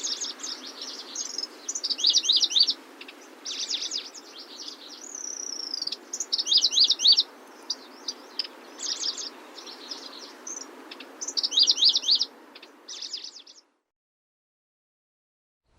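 A grasshopper warbler (Locustella) singing a varied, high-pitched song of short phrases and rapid trills, with brief pauses, over a steady background hiss. The recording cuts off about 13.5 seconds in, followed by silence.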